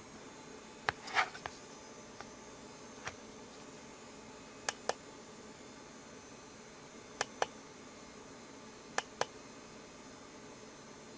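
Small sharp clicks from the kit-built LED digital clock being handled: a short rattle of clicks about a second in, then three pairs of clicks about a fifth of a second apart, roughly every two seconds, over a faint steady hiss.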